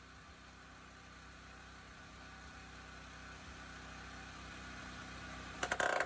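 Steady machine hum, slowly growing louder. Near the end comes a loud, short burst of rapid stuttering strokes as a pneumatic tool on an air hose drives fasteners through a metal bracket into a timber beam.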